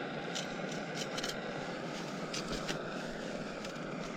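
A knife cutting a piece of heart for bait, giving a few light, scattered clicks and scrapes over a steady faint hum.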